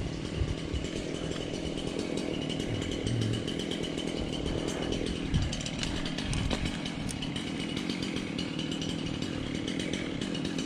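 Chainsaw running at speed, its engine pitch dropping and recovering about five seconds in.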